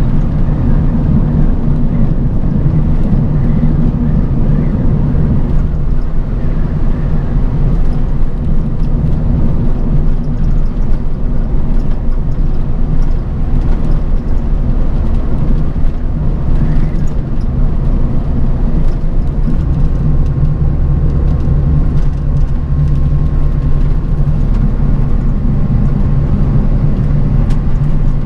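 Bus on the move: a steady low engine drone and road rumble. A faint steady whine joins about two-thirds of the way through.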